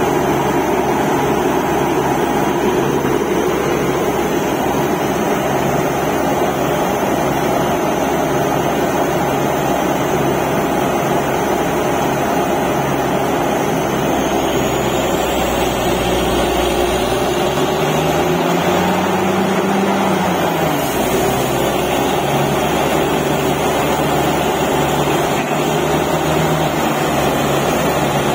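Truck-mounted borewell drilling rig and its air compressor running loudly and steadily while drilling. The engine note rises and falls once, about two-thirds of the way through.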